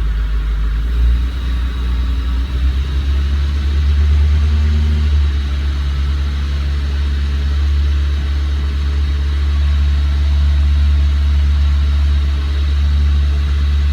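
Renault Logan's 1.6-litre eight-valve four-cylinder engine idling, its loudness a little uneven for the first few seconds and then settling to a steady low hum.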